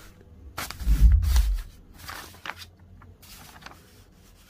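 Ghost box sweeping radio bands: short bursts of static and noise, the loudest about a second in, then two smaller bursts.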